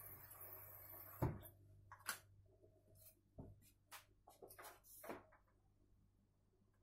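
A steady low hum cuts off with a click about a second in. Then comes a run of light, sharp, irregular taps as a white wagtail pecks at a superworm (Zophobas larva) on a countertop.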